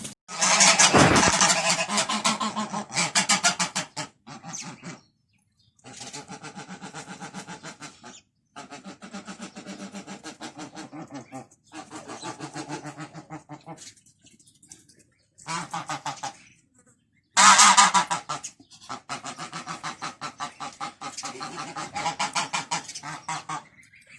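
Domestic ducks quacking and geese honking together in fast runs of calls, in stretches of a few seconds broken by short gaps, loudest about a second in and again about three quarters of the way through.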